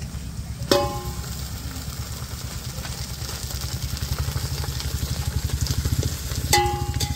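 Chicken frying with onions and ginger-garlic in hot oil in a metal pot as it is stirred, with a ladle clanking against the pot twice, once about a second in and once near the end, each strike ringing briefly. A steady low throbbing rumble runs underneath.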